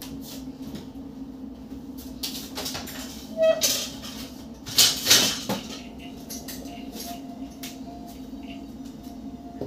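Kitchen handling noises from just out of view: a few short knocks and clatters between about two and five and a half seconds in, over a steady low hum.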